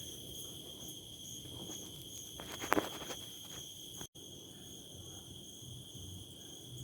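Crickets chirping in a steady high trill through the night, with a brief rustling clatter nearly three seconds in. The sound cuts out for an instant about four seconds in.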